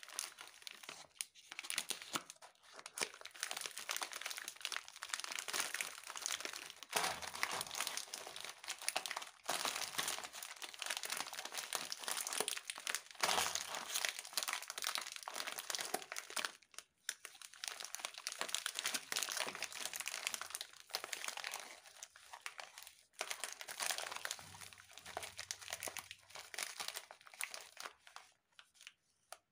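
Glossy plastic wrappers of Britannia Treat Jim Jam biscuit packets crinkling as hands squeeze and shuffle a pile of them. The crinkling is almost continuous, with a few short breaks, and dies away near the end.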